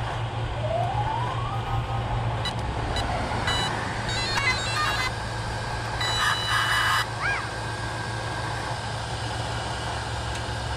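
Electronic beeps and tones from the brushless ESC and motors of an Arrma Felony RC car as its speed controllers are plugged in and powered up: a rising tone, then a run of short stepped beeps and a louder beep cluster. A steady low hum runs underneath.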